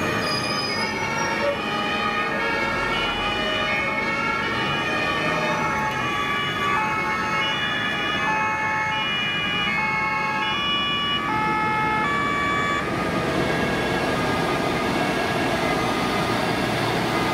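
Several German two-tone emergency-vehicle sirens (Martinshorn) sounding out of step with each other as a convoy of ambulances and fire-service vans passes. The sirens stop about two-thirds of the way through, leaving the engine and tyre noise of the passing vehicles.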